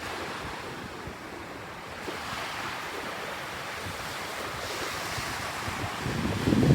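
Sea surf breaking and washing on a beach in slow swells, with wind buffeting the microphone, the low rumble growing near the end.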